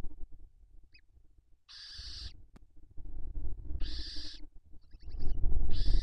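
Barn owls at the nest: three rasping hisses, each about half a second long and about two seconds apart, with a short run of thin chirps just before the last one. Under them is low rustling and thumping from the birds moving right beside the microphone, loudest near the end.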